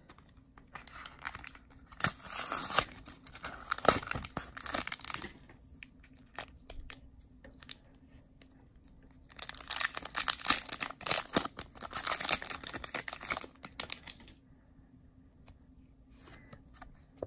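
Foil wrapper of a Pokémon trading card booster pack being torn open and crinkled by hand, in two spells of a few seconds each.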